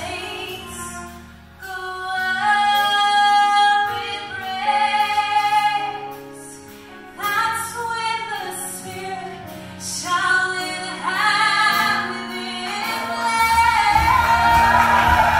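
A woman sings a gospel solo lead, holding and bending long notes over sustained accompaniment chords. Near the end many more voices join in and the sound grows louder.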